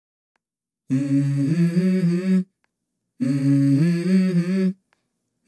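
Music: a short hummed vocal phrase with a few stepping notes, heard twice after a moment of silence, as the intro of a song.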